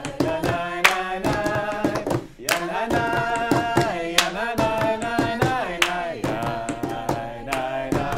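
A group of voices singing a seder melody together in long held notes, with sharp hand claps cutting in on the beat.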